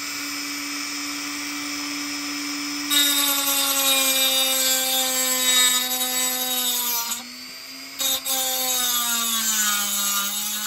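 Dremel rotary tool with a diamond cutting wheel running with a steady whine, then grinding the end of a metal model-railroad rail: loud grinding starts about three seconds in, stops briefly around seven seconds as the wheel comes off, then resumes, the motor's pitch sagging a little under load near the end.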